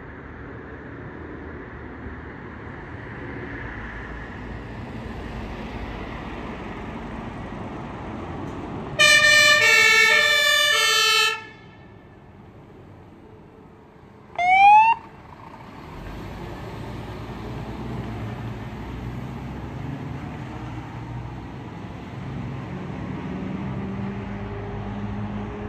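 Fire engine's two-tone siren sounding for about two seconds, then a short rising siren whoop a few seconds later, over the steady rumble of the truck's engine as it drives past; the engine noise swells near the end.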